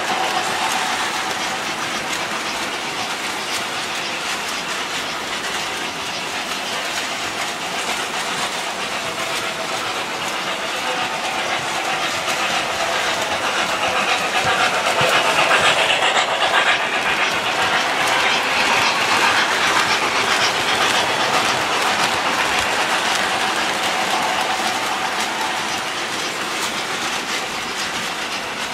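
Model trains running on the layout's track, a steady rumble and clatter of small wheels over the rails, growing louder about halfway through.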